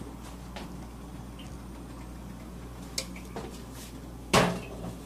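A few light ticks and clicks over a low steady hum, with one sharper, louder knock about four and a half seconds in.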